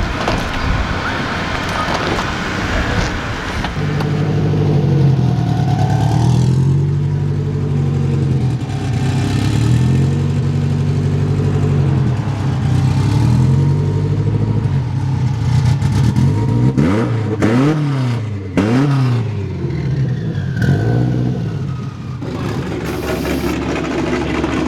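A car engine being revved again and again, its pitch climbing and dropping every couple of seconds, with a few quicker, sharper blips later on.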